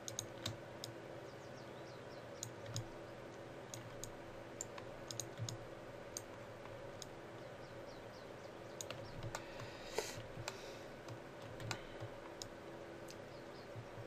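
Scattered clicks of a computer mouse and keyboard, coming a few at a time with short gaps, over a faint steady background hum. A brief rustle comes about ten seconds in.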